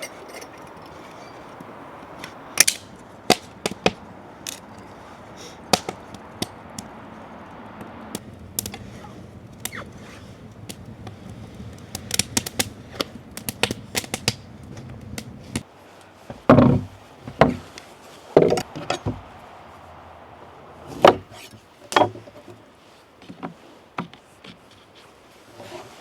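Campfire being lit and tended: sharp snaps and crackles of burning and handled wood over a steady low hiss, then a run of heavier wooden knocks and thuds about two-thirds of the way in.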